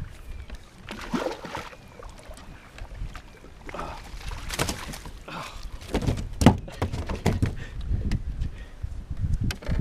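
Scattered splashes and knocks around a fishing kayak as a large bass is fought close to the boat, with a few short sounds near the middle.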